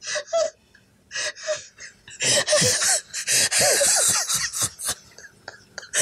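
A man laughing breathlessly in short gasping, wheezing bursts, building to a longer helpless run in the middle.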